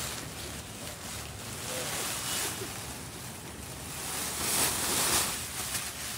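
A rustling hiss that swells and fades, loudest about two seconds in and again near the end.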